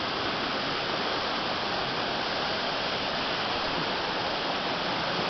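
Fast river current rushing steadily past a raft on whitewater: an even, continuous rush of moving water with no breaks.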